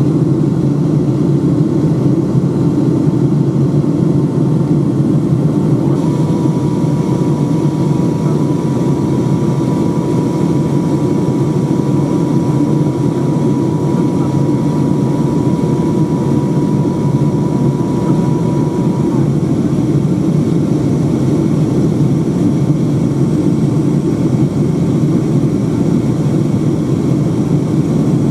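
Steady cabin noise of a Boeing 757-200 airliner descending on approach to land: a low, even rumble of jet engines and airflow. A faint steady whine comes in about six seconds in and stops about two-thirds of the way through.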